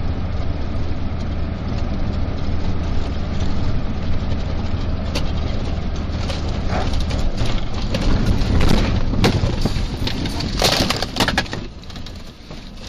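A car driving with a steady low road rumble, then a run of crunching, breaking impacts from a vehicle collision, loudest about ten to eleven seconds in.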